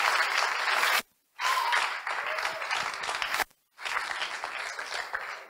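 Audience applauding. The sound cuts out to silence twice for a moment, about a second in and about three and a half seconds in, and the clapping dies away near the end.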